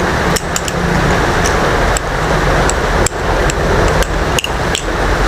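Balisong (butterfly knife) being flipped through a combo: irregular sharp clicks and clacks of the handles and blade swinging and meeting, about eight or nine in all, over a steady rushing background noise.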